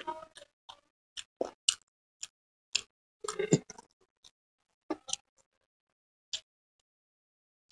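Close-up eating sounds of a man eating biryani by hand: scattered short, wet clicks and smacks of chewing and of fingers working the rice, with a denser cluster about three and a half seconds in.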